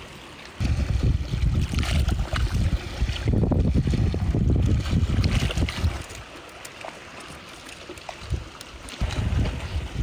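Wind buffeting the microphone as a low, uneven rumble, in two spells with a quieter lull between them, over faint water and a few light clicks.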